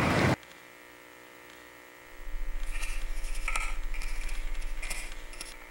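Loud hiss of TV static that cuts off abruptly a moment in, leaving a faint steady electrical hum. About two seconds in, a low electrical buzz starts, pulsing about a dozen times a second, with short bursts of crackling hiss, and it fades near the end.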